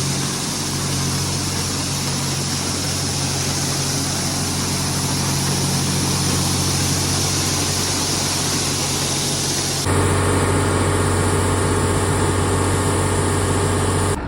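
Grain truck's engine running steadily under a rushing hiss of shelled corn pouring out as the truck is unloaded. About two-thirds of the way through the sound changes abruptly to a steadier, stronger engine drone with less hiss.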